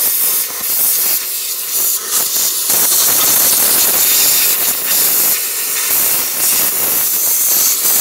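Compressed air hissing loudly from a blow-gun nozzle into the open distributor housing, clearing dirt from where the camshaft position sensor was removed. The hiss dips briefly twice in the first few seconds, then holds steady.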